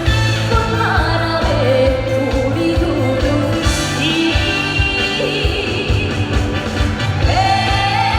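A woman singing a trot song live over a backing track with a steady beat.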